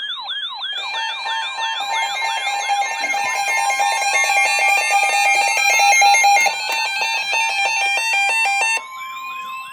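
Layered electronic alarm tones of an emergency alert. A falling chirp repeats about three times a second. About a second in, a fast pulsing stack of stepped beeps and a slowly rising sweep tone join it. The pulsing beeps cut off near the end, leaving the chirp.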